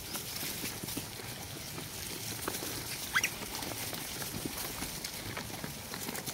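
A troop of rhesus macaques feeding on watermelon: a busy patter of small clicks and rustles from chewing and jostling. One monkey gives a short rising squeak about three seconds in.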